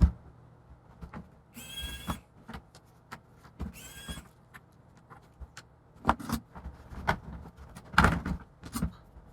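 Laptop being taken apart by hand: scattered clicks and knocks of plastic case parts and small components, with two short squeaky whirs about two and four seconds in.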